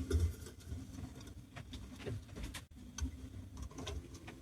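Scattered light clicks and soft taps of hands working a portable typewriter's ribbon mechanism while threading a ribbon through its spools and ribbon guide, with a few soft low knocks.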